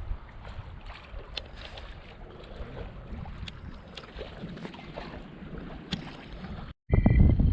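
Sailboat's auxiliary motor running under way: a low steady rumble with scattered small knocks and clicks. A little under seven seconds in it cuts off abruptly, and loud wind buffets the microphone.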